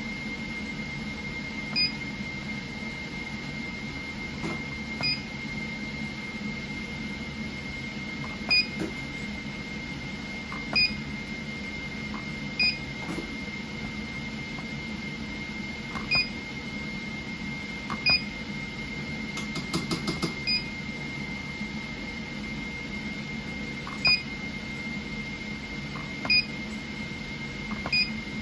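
Touchscreen LCD display module's buzzer giving a short, high beep at each press of an on-screen key, about ten beeps a few seconds apart at an uneven pace. A steady faint high whine runs underneath.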